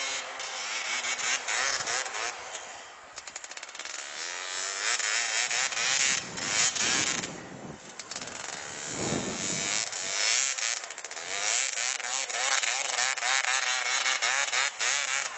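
Motorcycle engine on a dirt bike converted to a snow bike with a front ski and rear track, revving as it rides through deep snow. Its pitch rises and falls over and over with the throttle, and it fades and comes back a couple of times as the bike moves about.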